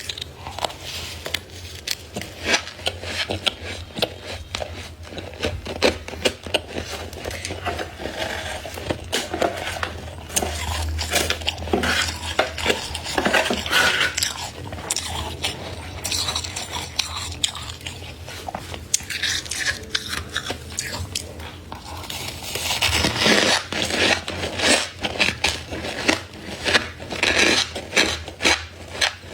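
Thick freezer frost being scraped and crunched, with a continuous run of crisp crackles and scrapes that swell louder twice. A steady low hum runs underneath.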